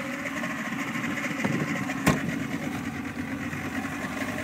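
Engine of the motorboat that tows the banana boat running steadily, with a single sharp knock about two seconds in.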